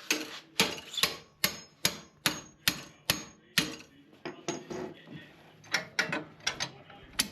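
A steel hammer repeatedly strikes to tighten the axle nut on a Harley-Davidson bagger's rear wheel. Each blow gives a sharp metallic clank. A run of hard, evenly spaced blows, about two or three a second, is followed about halfway through by lighter, quicker taps.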